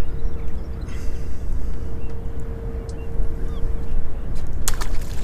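Wind buffeting the microphone in an open boat: a steady low rumble with a constant faint hum under it, and a short sharp knock about four and a half seconds in.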